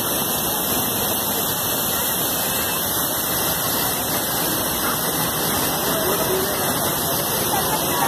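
Fast-flowing, swollen mountain stream rushing and splashing over boulders: a steady, loud rush of water.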